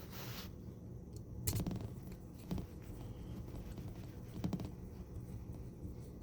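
Faint handling sounds from a small hex screwdriver driving screws into the RC crawler's plastic battery tray: a few short clicks and scrapes, the clearest about a second and a half in, with more near two and a half and four and a half seconds.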